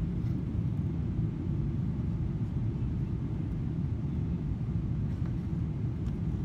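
Steady low rumble of a Boeing 777-300ER's GE90 engines and airflow, heard inside the passenger cabin from a window seat.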